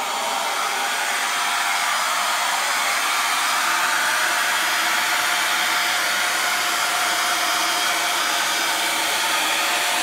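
Two Kitfort upright vacuum cleaners, KT-535 and KT-509, running side by side: a steady motor whine and a rush of air.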